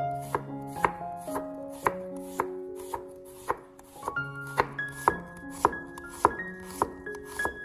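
Cleaver-style kitchen knife slicing red onions on an end-grain wooden cutting board, a sharp knock of the blade on the wood about twice a second, over light background music.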